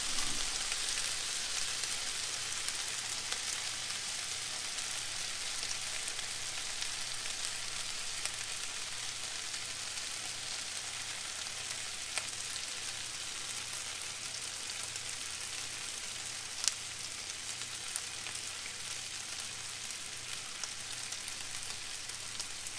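Chicken and vegetables in teriyaki sauce sizzling steadily in a frying pan on low heat, with a few faint ticks.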